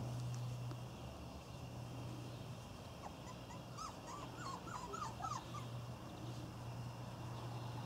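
Irish Terrier puppy whimpering: a run of about eight short, high whines over two or three seconds, with a steady low hum underneath.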